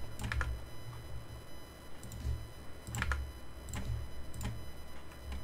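Computer keyboard and mouse clicks, a handful of short taps spaced irregularly, over a low steady hum.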